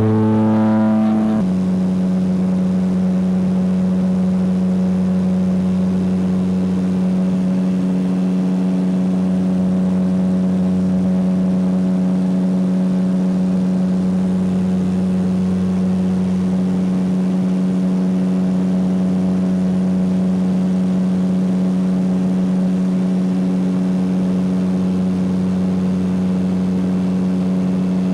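Aircraft engines droning steadily, heard from inside the cabin. The hum steps down slightly in pitch about a second in and then holds level.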